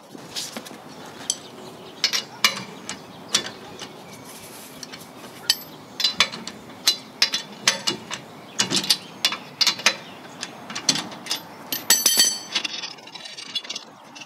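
Hand ratchet clicking in short, irregular runs as loosened wheel lug nuts are spun off, with a fast burst of clicks near the end.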